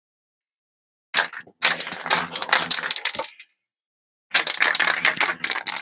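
Small hard art supplies clattering and clinking against each other as they are rummaged through, in two bursts of quick clicks with a short gap between them.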